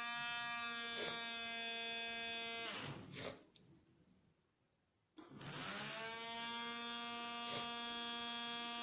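Small electric motor spinning a wheel, a steady high whine that rises in pitch as it speeds up. It stops about three seconds in and starts again about five seconds in. It runs because the helmet's sensor detects the helmet being worn.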